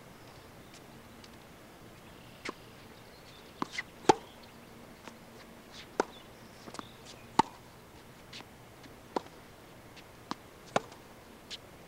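Tennis ball being struck with rackets and bouncing on a hard court: about a dozen sharp pops and smacks at irregular intervals, the loudest about four seconds in.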